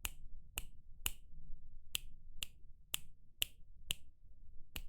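A run of sharp clicks at about two a second, with a brief pause about a second and a half in.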